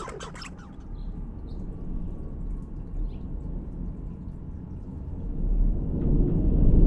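A low rumble that swells louder over the last second and a half, with a few brief scratchy clicks at the very start.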